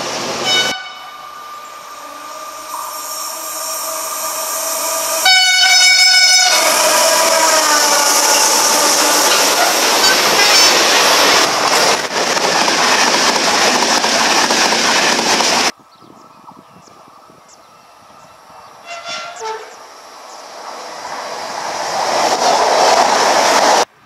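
A CP electric locomotive hauling passenger coaches sounds its horn as it approaches at speed, loudest about five seconds in, and the horn's pitch drops as it goes by. The rush and clatter of the passing train follow. After that comes a quieter stretch, with a rumble swelling again near the end.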